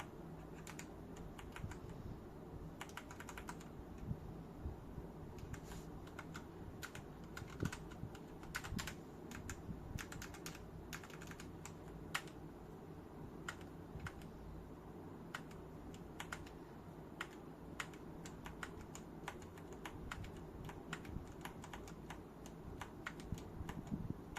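Keys of a Royal Kludge RK100 full-size mechanical keyboard with brown switches being pressed: irregular key clacks throughout, some in quick runs of several strokes.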